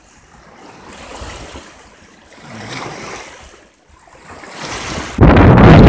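Small lake waves washing against a rocky shore, swelling and easing every second or two. About five seconds in, loud wind buffeting on the microphone takes over.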